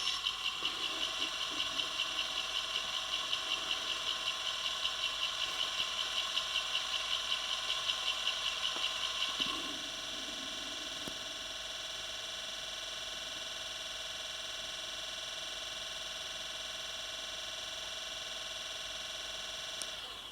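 Simulated Class 35 Hymek diesel engine sound from a DCC sound decoder, played through a small speaker inside a 7mm scale model locomotive. The engine note throbs about four times a second, settles to a steady drone about halfway through, then cuts off just before the end.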